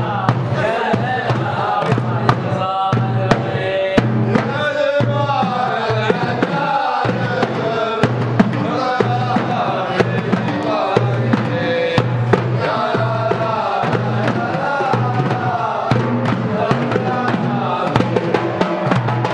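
Group of male voices chanting a folk song together, over large hand-held frame drums struck in a steady rhythm.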